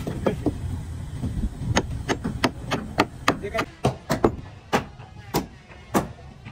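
Repeated sharp hand-tool strikes on wooden boat timbers, starting a little under two seconds in and coming roughly twice a second, some in quick pairs, each with a short ring.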